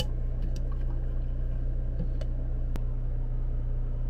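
A steady low hum, with a few faint metallic clinks from a mesh strainer being handled on a glass French press, and one sharp click near the end.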